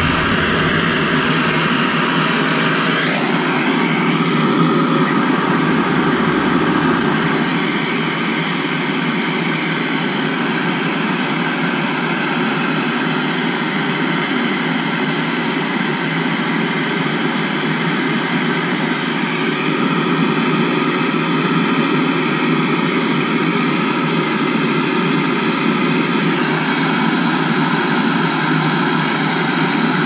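Handheld gas torch burning with a steady hiss, its flame held on a copper water pipe to heat the joint for soldering.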